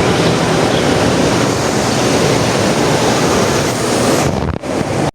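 Steady loud rushing of water, broken by two abrupt drops near the end.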